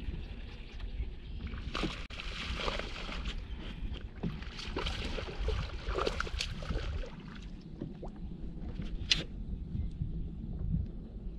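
A small bass splashing and thrashing at the water's surface beside the boat as it is reeled in, over a steady low wind rumble on the microphone. A single sharp click about nine seconds in.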